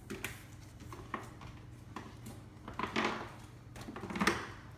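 Old rubber door gasket of a Samsung French-door refrigerator being pulled out of its channel in the door liner: scattered small clicks and rustling, with two longer, louder scraping pulls about three and four seconds in.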